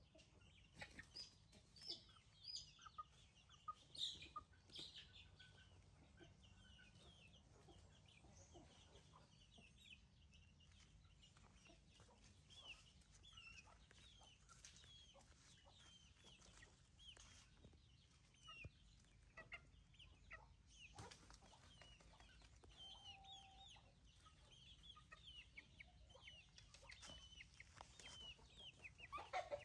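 Faint chickens clucking, with many short high chirps and a few louder clicks in the first few seconds.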